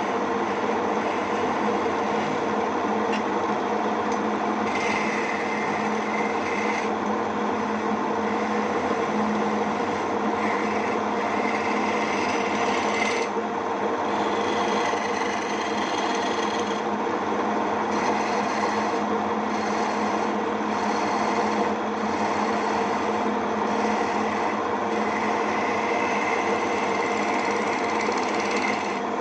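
Homemade wood lathe running steadily with a constant motor hum, with a rasping sound that comes and goes several times as the spinning wooden lure blank is worked.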